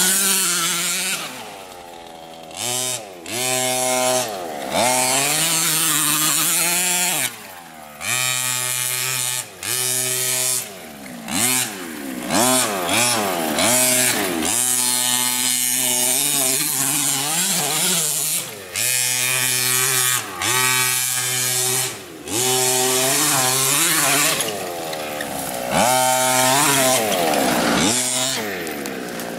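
Two-stroke petrol engine of a large-scale MCD RC car with a Beetle body, revved up and down in repeated bursts. Its pitch rises and falls many times, and it drops back to a quieter idle between throttle bursts.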